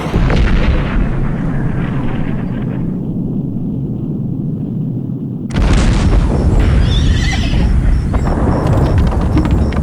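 Electroacoustic soundscape of dense, rumbling noise that thins in the highs partway through, then swells back suddenly and loudly about five and a half seconds in.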